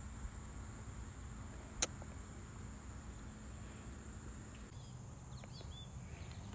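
Steady high-pitched drone of insects, with one sharp click about two seconds in. Near the end come a few short bird chirps.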